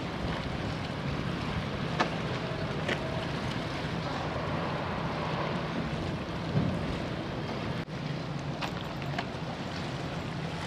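Steady low hum of a large ferry's machinery with wind on the microphone, broken by a few sharp knocks.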